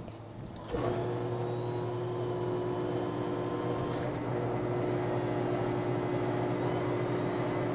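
CS700 milkshake machine starts up abruptly about a second in and runs with a steady motor hum as it dispenses and blends a shake in the cup under its spindle.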